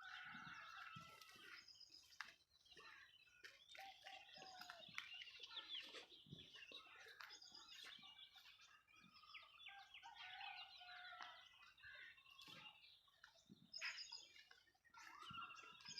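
Faint bird calls: many short overlapping chirps and quick rising and falling notes, with a few scattered soft clicks.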